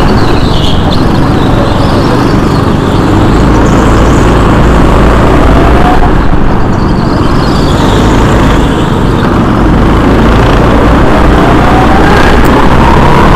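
Go-kart engines running loud and steady, with the engine pitch rising a few times as a kart accelerates, once about midway and again near the end.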